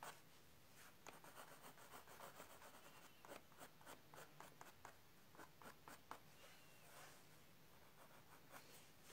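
Faint scratching of a colored pencil on toned paper: many short, quick strokes of fine detail work, thickest in the first two-thirds, with a few scattered strokes near the end.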